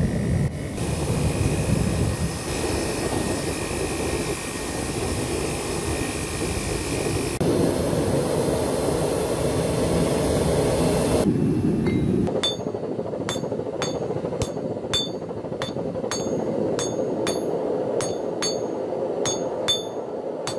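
A forced-air forge burner running with a steady, loud rush. About twelve seconds in this gives way to a hammer striking hot railway-track steel on an anvil, about two ringing blows a second.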